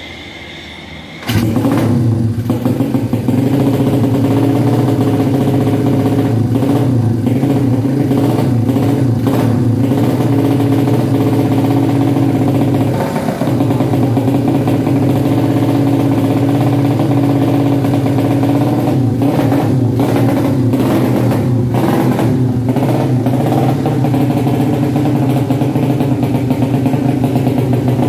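Racing-tuned single-cylinder motorcycle engine with an open racing exhaust running on the stand. It picks up sharply about a second in, then holds a steady fast rev, with a brief dip about 13 seconds in. This is a test run after a compression leak at the cylinder head gasket was repaired.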